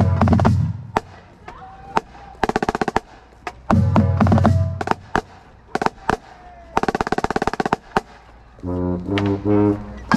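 Marching snare drum played close up: short bursts of very rapid strokes and rolls, with deep heavy band hits alongside them. Near the end the band's horns come in, playing held notes that step in pitch.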